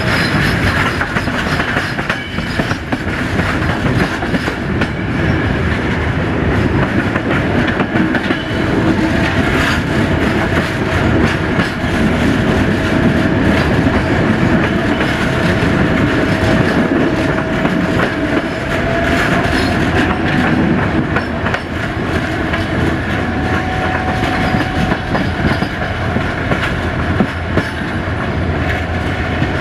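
Passenger train running along the line, heard from on board: a steady rolling rumble with the wheels clicking over the rail joints. A thin whine comes in through the middle stretch and rises slightly in pitch.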